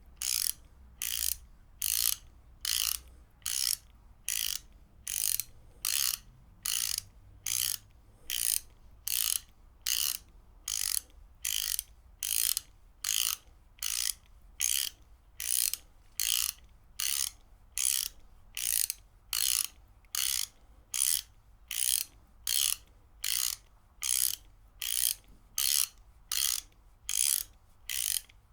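Ratchet wrench being worked back and forth, each stroke a short burst of rapid pawl clicks, about two strokes a second in a steady rhythm.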